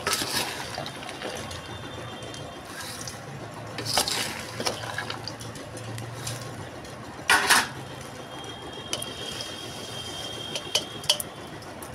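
A metal spoon stirring and scraping dry roasted nuts, fox nuts and coconut in a steel pan, the dry pieces rattling. There are louder clatters about four and seven seconds in. Near the end more pieces are poured in with a short rattle of clicks.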